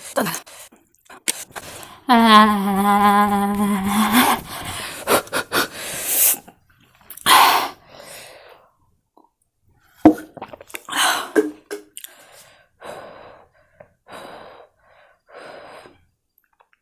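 A woman reacting to very spicy noodles. About two seconds in she lets out a long, steady, drawn-out vocal cry, the loudest sound here, followed by sharp breathy gasps and heavy breathing through the rest.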